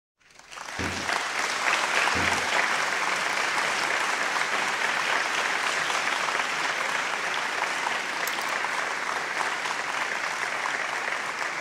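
Audience applauding steadily, fading in over the first second. Two dull low thumps come through the clapping about a second apart near the start.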